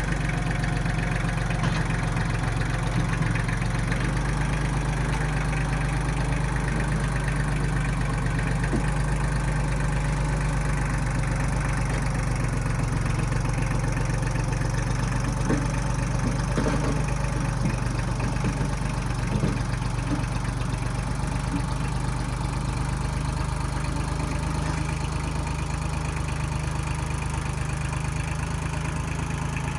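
Engine of a 1995 Kubota backhoe running steadily at a constant speed, with a few faint clicks about halfway through.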